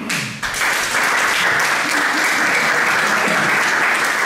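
Audience applauding: clapping swells in the first half-second, then holds steady.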